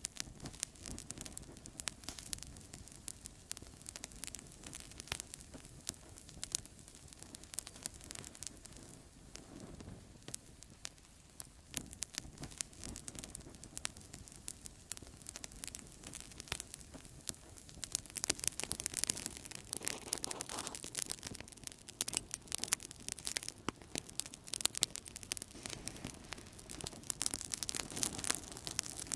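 Outdoor campfire crackling: a steady run of sharp pops and snaps over a low rush of burning wood, the crackles growing denser and louder a little past halfway.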